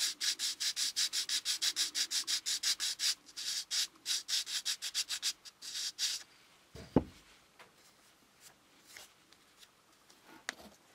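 A small model car grille being rubbed quickly back and forth on 180-grit sandpaper on a board, about six strokes a second, stopping about six seconds in. A single sharp knock follows, then a few faint clicks as the part is handled.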